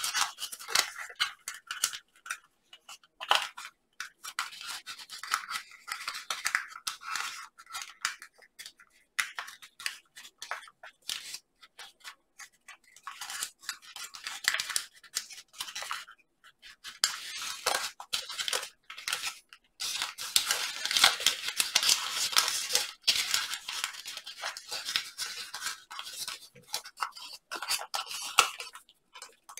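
Hands folding and creasing a large sheet of origami paper: irregular rustling, crinkling and scraping of the paper, busiest about two-thirds of the way through.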